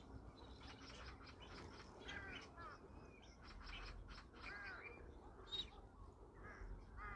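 Several crows cawing over and over, faint, with short arched calls overlapping one another.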